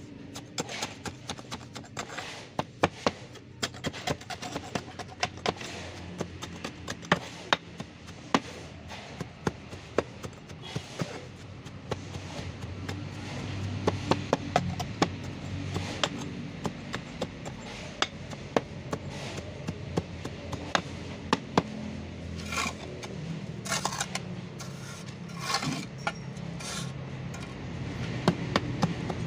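Metal hand tamper ramming damp gravel-concrete mix into a steel block mould: a rapid, irregular run of sharp knocks and gritty crunches, several a second, with a few longer scraping strokes in the second half.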